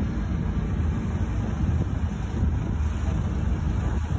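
Wind buffeting the microphone outdoors: a steady low, uneven rumble with a faint hiss above it.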